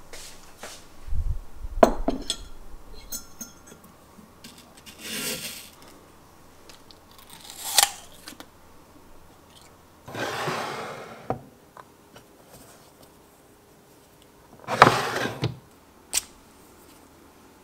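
Tabletop handling sounds: a ceramic plate set down on a wooden desk with a low thud and a clink, followed by several short rustling swishes and light clicks.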